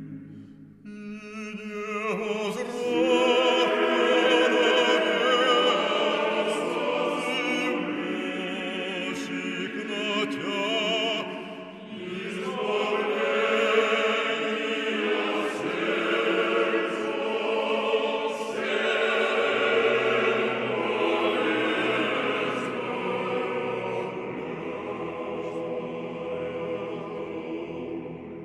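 A choir singing with vibrato, entering about two seconds in and fading near the end.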